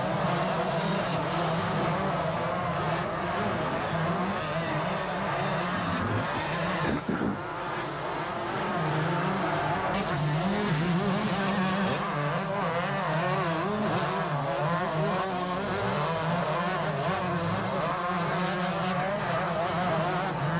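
A pack of 125 cc two-stroke motocross bikes racing, their engines revving up and down over one another in a wavering, overlapping buzz. There is a short dip in the sound about a third of the way through.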